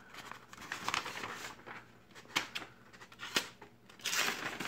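Sheets of printer paper rustling and crinkling as they are handled, with a few light clicks. About four seconds in, a freshly sharpened Mora knife slices through a sheet of paper in one brief hiss, a test of its edge.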